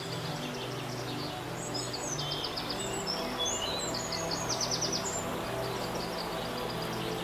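Birds singing in quick, repeated trills over a steady rush of flowing water, with soft, sustained background music underneath.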